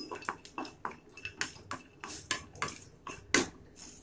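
Slotted wooden spatula stirring pistachios dry-roasting in a nonstick pan: the nuts rattle and scrape across the pan in a string of irregular clicks, roughly three a second, the loudest a little after three seconds in.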